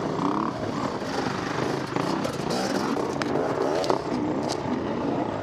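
Enduro motorcycle engines revving up and down in short bursts as riders clamber over a pile of broken concrete and rock, with a few sharp knocks.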